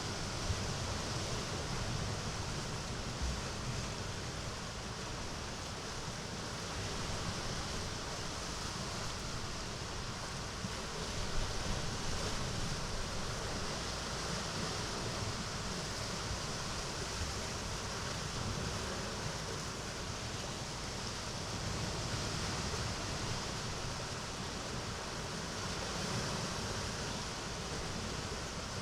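Mediterranean sea waves washing into a small cove: a steady hiss of surf that swells and eases every several seconds.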